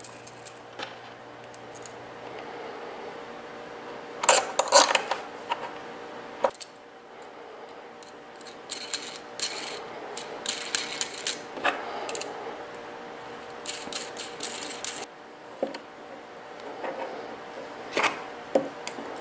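Small metal hardware handled by hand on a workbench: nuts, bolts and a wrench clicking and clinking against each other and against a 3D-printed plastic carriage. The clicks come in several short clusters a few seconds apart.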